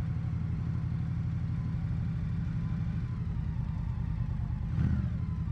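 Indian Scout motorcycle's V-twin engine running steadily under way, picked up from inside the saddlebag with little wind noise. There is a brief louder swell near the end.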